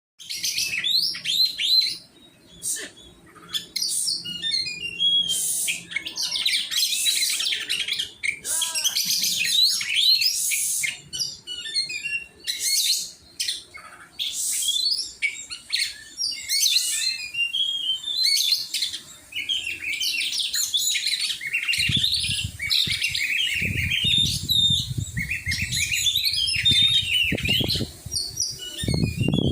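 Oriental magpie-robin (kacer) singing a rapid, varied run of whistles and chirps. A low rumbling noise joins in during the last several seconds.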